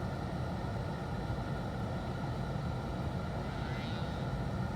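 Toyota car running with a steady low rumble of engine and road noise, heard from inside the cabin.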